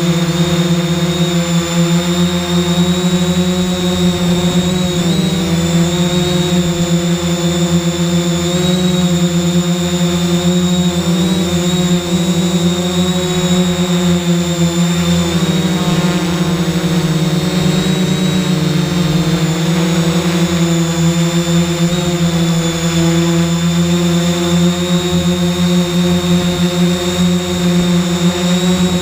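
3DR X8 coaxial octocopter's electric motors and propellers droning steadily, heard from on board the aircraft, with a high electric whine over the buzz. The pitch wavers briefly a few times as the motors change speed to hold position.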